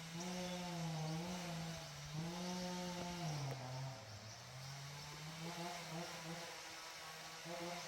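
A small engine running off in the distance, a steady drone whose pitch wavers up and down and sags for about a second midway before picking back up.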